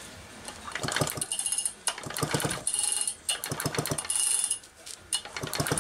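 Homelite Super EZ chainsaw cranked by repeated pulls of its recoil starter, each pull bringing a fast run of sparks popping across the wide gap of a spark tester. The spark is strong, a sign that the ignition coil is good.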